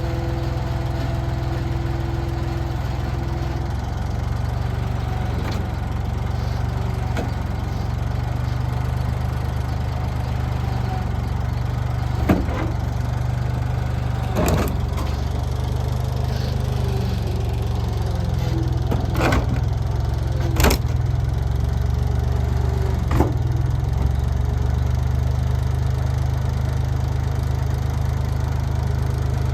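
Bulldozer engine running steadily with a low, even drone. About five sharp knocks stand out over it through the middle of the stretch.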